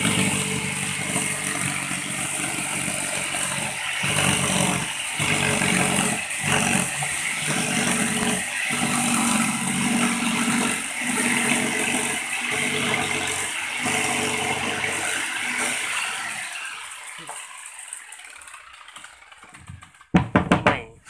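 Corded electric jigsaw cutting through MDF board, the blade chattering steadily with short breaks every second or so. The cutting fades out about three-quarters of the way through, and a sharp knock comes near the end.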